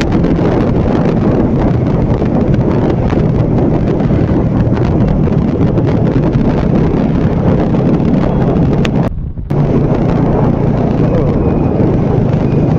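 Motorcycle riding at speed: wind rushing over the microphone over the engine's steady running. The sound cuts out for a moment about nine seconds in.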